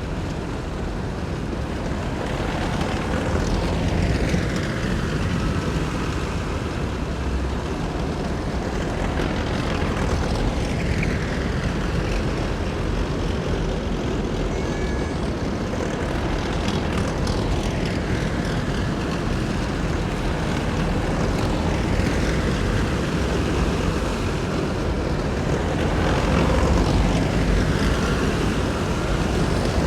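A column of heavy military vehicles driving past one after another, making a continuous deep engine rumble. Several times a whoosh falls in pitch as another vehicle goes by.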